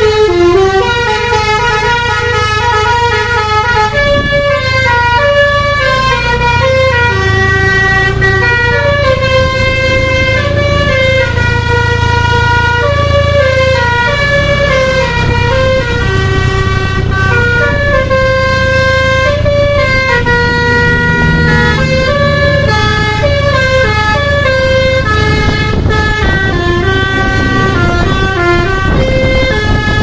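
Bus telolet basuri horn, a multi-note musical horn, playing a long melody of stepped notes that changes pitch every fraction of a second, over the low, steady sound of the bus's engine running.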